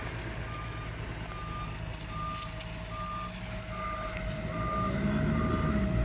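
A fire truck's reversing alarm beeps evenly, a little more than once a second, over the steady hum of its running engine.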